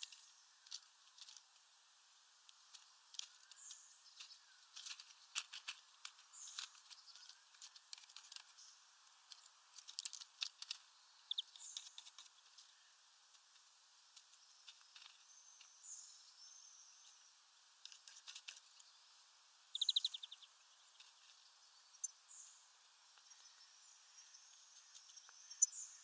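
European goldfinches feeding on sunflower seeds: scattered sharp clicks and taps as their beaks crack seeds and peck the feeder tray, with short high chirps and one brief buzzy trill about twenty seconds in.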